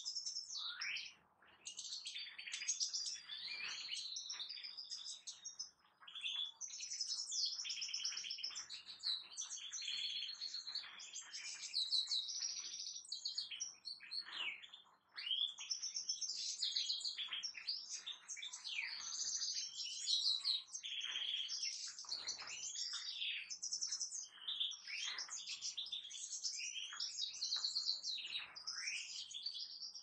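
European goldfinches singing: a dense, fast twittering song of high chirps and trills, with short breaks about a second in, near six seconds and near fifteen seconds.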